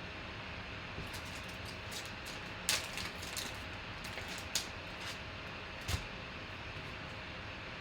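Faint steady hum with a few short crinkles and taps of a trading card box and its packs being handled and opened.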